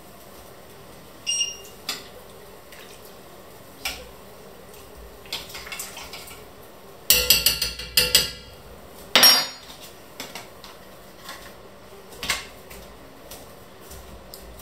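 A metal spoon clinking and scraping against a heavy red enamelled pot while stirring soup. The clicks are scattered, some of them ringing, with a run of rapid clinks about halfway and one loud ringing clink just after.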